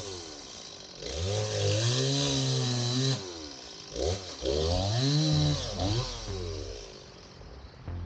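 Chainsaw revved up twice, its pitch climbing, holding for a second or two, then dropping back to idle each time.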